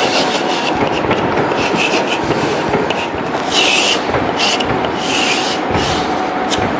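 Chalk scratching on a blackboard as an equation is written and boxed, in a series of short strokes that are busiest in the second half, over a steady background hiss.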